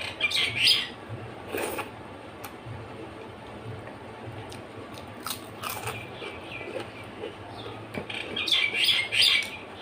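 Close-up eating sounds as rice and dal are mixed by hand and eaten: short wet, crackly bursts, the loudest about half a second in and near the end.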